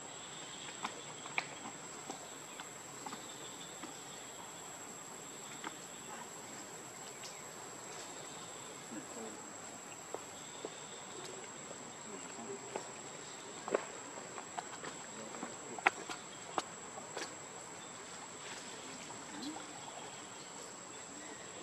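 Steady high-pitched insect drone, with scattered short clicks and small water splashes from a macaque wading and swimming through a shallow pool.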